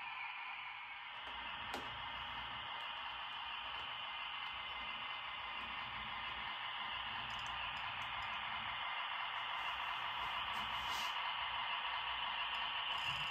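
HO scale model diesel switcher locomotive running slowly along the track: a steady whirring hiss from its small motor and wheels on the rails, with a low hum joining about a second in. It grows a little louder toward the end.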